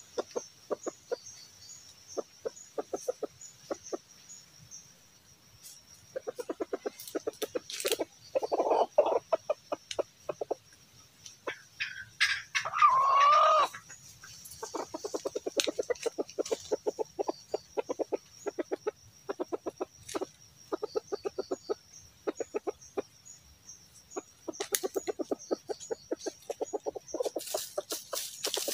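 Red junglefowl rooster clucking in runs of rapid short clucks, with one short crow about halfway through.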